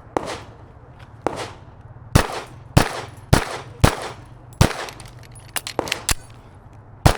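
A string of about ten pistol shots from a Canik TP9 fired in a timed IDPA stage, roughly half a second apart, with some quicker pairs, the first two fainter.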